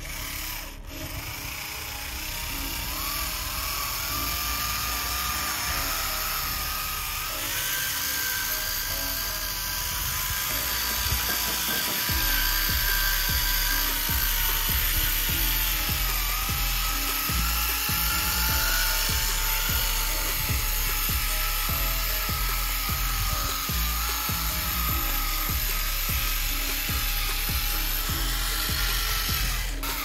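Small motor and gearbox of a DIY 4x4 remote-control tractor model whining as it drives, the pitch wavering up and down with the load. Background music with a steady low beat plays over it.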